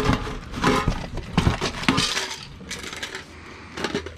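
Small metal tobacco tins clinking and rattling against each other as they are rummaged through and lifted out of a cardboard box, in irregular short knocks.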